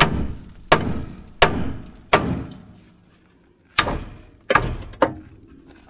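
Hammer blows on the steel steering linkage under a Ford F-350's front end, seven hard strikes that ring briefly: four about 0.7 s apart, a pause, then three more in quicker succession.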